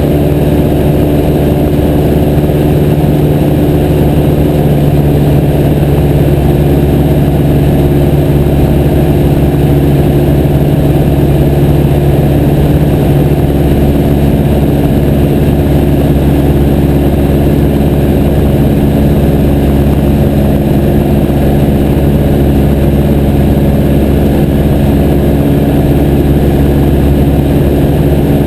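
Piper J3 Cub's engine running steadily at a constant speed, heard from on board the aircraft, with an even rush of noise beneath it.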